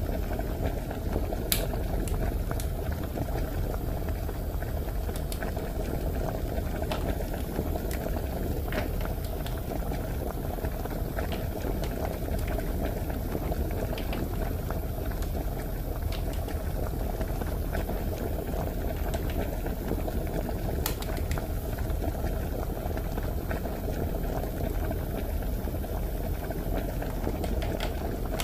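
Steady bubbling, boiling-like noise from a toy kitchen play set, with light clicks of plastic toy food and utensils being handled.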